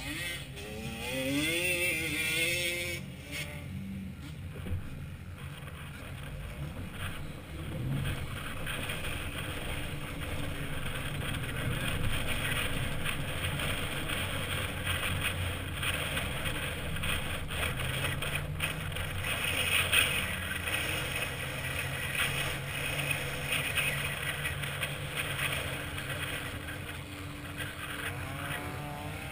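Lifted 2007 Chevy Avalanche's V8 running steadily through a Flowmaster exhaust as the truck drives on sand, heard from a camera on the hood.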